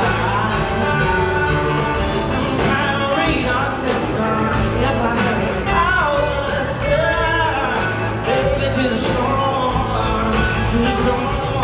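Live country-pop song: a male lead voice singing over strummed acoustic guitar and a full band with steady bass, in a large arena.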